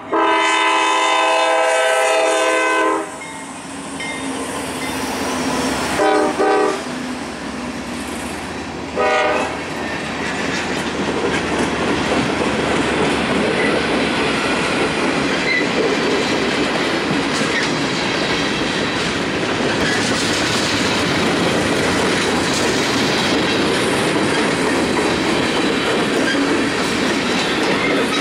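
The multi-chime air horn of a GE C40-8W locomotive sounding for a grade crossing: a long blast of about three seconds, then two quick short blasts around six seconds in and one more short blast near nine seconds. After that the freight cars roll past with steady wheel-on-rail noise.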